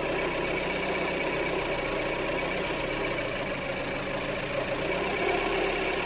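Hyundai Elantra 2.0-litre four-cylinder engine idling with a miss on cylinder 3. The misfire comes from a vacuum leak at the intake manifold gasket around the base of that cylinder's injector.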